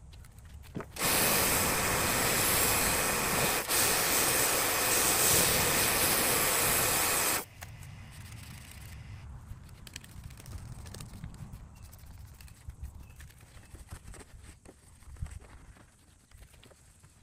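Kärcher mini pressure washer running and spraying water for about six seconds, starting and cutting off abruptly as the trigger is pulled and released, with a momentary break partway through. Afterwards only faint, irregular knocks and rustles.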